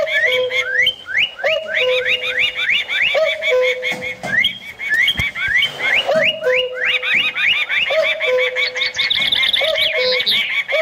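A layered chorus of bird calls. Rapid, high chirps and whistles, some sweeping quickly upward, sound over a lower call that repeats about once a second.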